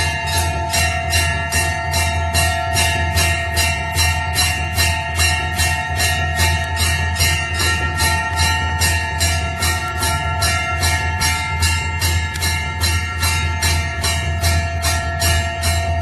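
Temple bell rung rapidly and without a break, about three strikes a second, its metallic tones ringing on between strikes over a steady low hum.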